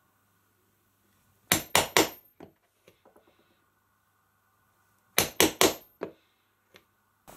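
Hammer striking a steel stitching chisel to punch stitch holes through leather laid on a wooden board. There are two groups of three quick blows, one about a second and a half in and another about three and a half seconds later.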